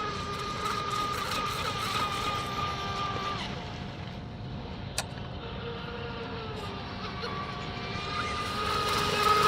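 Whine of the HK Pursuit RC boat's stock electric motor running out on the water: a steady high tone that weakens and drops in pitch around the middle, then rises and grows louder near the end. There is a single sharp click about five seconds in.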